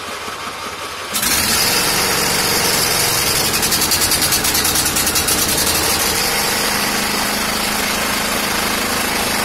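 John Deere lawn tractor's engine running just after starting, stepping up to a louder, steady run about a second in.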